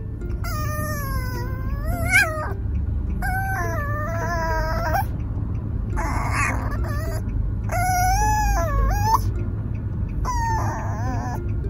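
Micro teacup poodle puppy whining in about five long, high, drawn-out cries, each a second or two long and often rising at the end. The cries sit over the low steady rumble of a car's cabin.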